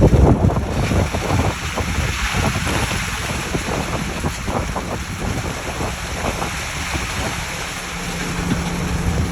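Ready-mix concrete truck's engine running under a loud rushing, splashing wash, likely concrete flowing out and landing in the forms, with wind buffeting the microphone.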